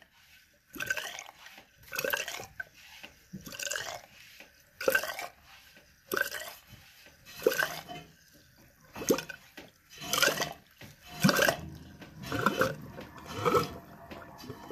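Hand pump drawing water out of a toilet bowl through a hose pushed into the drain, with a short rush of water at each pump stroke, about one stroke a second.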